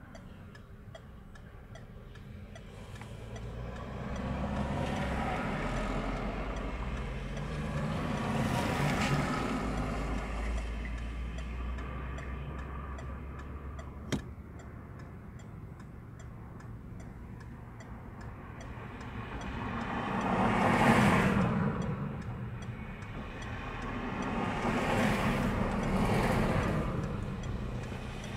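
Road traffic: several cars pass one after another, each sound swelling and fading, the two loudest passes about two-thirds of the way through. A single sharp click near the middle.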